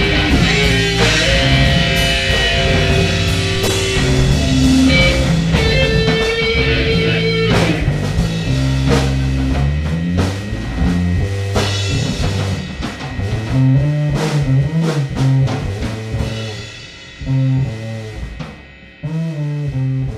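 A live band jamming freeform rock with guitar and drum kit. It grows sparser and quieter in the second half, with short breaks near the end, as the jam winds down.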